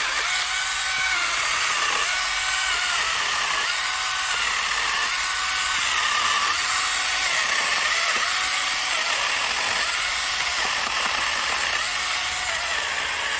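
Cordless battery-powered chain saw running with an electric motor whine, its speed and pitch repeatedly dipping and recovering about once every second and a half.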